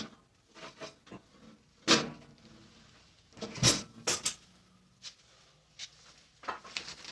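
Scattered knocks and clatters of parts being handled while a band saw's stand is put together, the loudest about two seconds in and a close pair near the middle.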